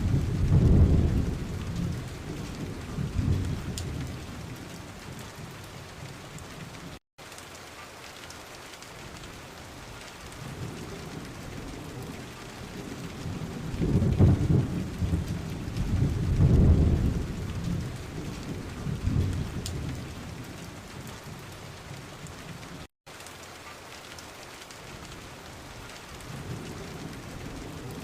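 Steady rain falling, with two long low rumbles swelling and fading away, one near the start and one a little past the middle. The sound cuts out for an instant twice.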